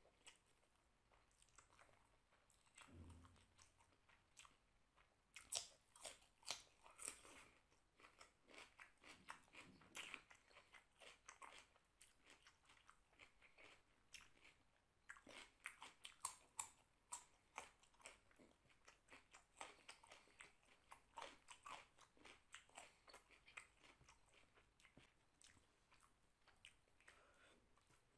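Close-up eating sounds: crisp, irregular crunching and chewing as raw carrot and other salad vegetables are bitten and chewed, mixed with softer chewing of rice and curry.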